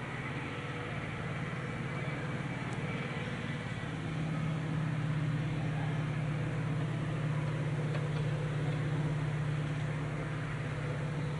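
Diesel locomotive engine running steadily with a low hum, growing somewhat louder about four seconds in.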